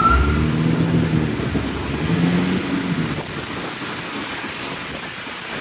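Fire apparatus under way in a heavy rainstorm: a steady rush of rain and road noise with engine rumble. A rising siren whoop tops out just as it begins, and a low droning tone sounds twice in the first three seconds.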